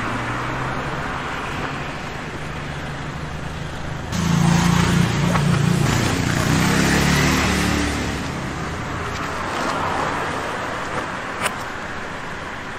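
A motor vehicle's engine running close by on the road, louder for a few seconds from about four seconds in, then easing off. Two light knocks come near the end.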